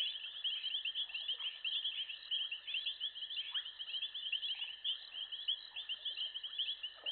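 Dense, continuous chorus of rapid high-pitched chirping over a steady high tone, with a few faint falling calls now and then.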